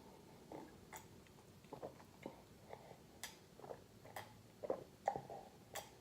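A person chewing fried chicken close to the microphone: faint, irregular mouth smacks and clicks, a couple each second, a little louder near the end.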